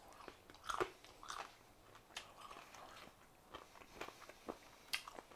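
A person chewing and biting roast chicken close to the microphone, with small irregular crunches and mouth clicks.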